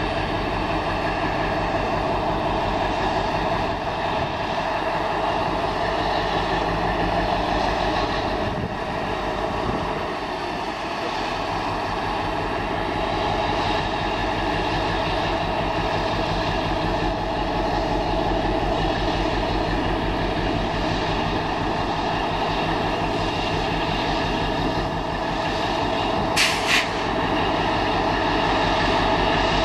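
Class 60 diesel-electric locomotive with its Mirrlees eight-cylinder engine running steadily as it hauls a rake of hopper wagons slowly past. About three seconds before the end, two short high squeaks cut through.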